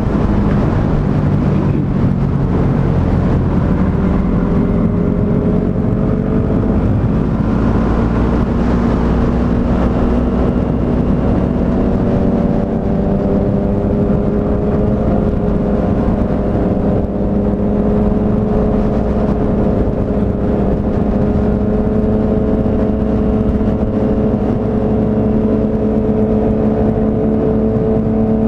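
Yamaha MT-03 motorcycle engine running under way, its pitch climbing slowly and steadily as the bike gathers speed in one gear, after a brief shift in pitch about six seconds in.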